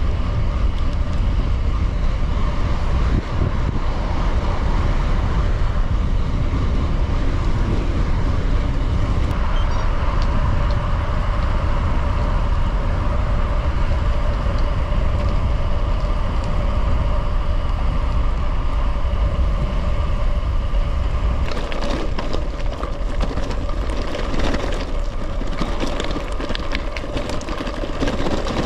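Gravel bike in motion: wind rushing over the microphone over steady tyre noise. About three-quarters of the way through, the wind eases and the rolling turns rougher and clickier.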